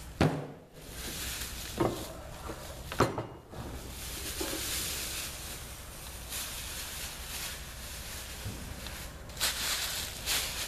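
Handling noise from unpacking: three sharp knocks in the first three seconds, then a steady rustling hiss with a few louder bursts near the end.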